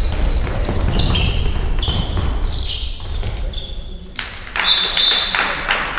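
A handball bouncing and players' feet on the wooden floor of a large sports hall during play. The noise swells about two-thirds of the way through.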